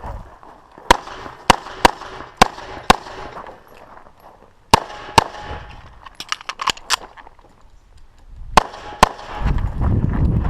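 Pistol shots from a competitor shooting a defensive pistol stage. There are about five sharp shots roughly half a second apart, then a pair, a quick cluster of fainter shots, and a final pair about a second and a half before a low rumble near the end.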